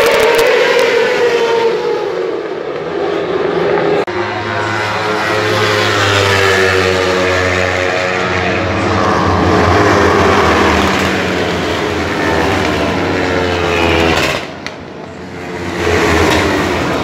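A tight pack of Supersport 300 race motorcycles passing at full throttle, many small engines running at once, their pitch falling as they go by. The sound dips briefly near the end before more bikes come through.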